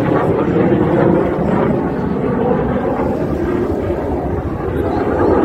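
Aerobatic display jets flying past, a loud steady rush of jet engine noise.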